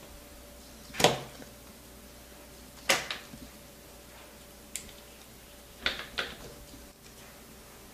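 About five short, sharp knocks and clacks of hard objects set down and handled on a wooden table, the last two close together.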